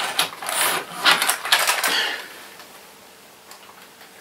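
OO gauge model railway coaches being picked up and handled on the layout's baseboard: about two seconds of scraping, rubbing and light clattering with a few sharp clicks.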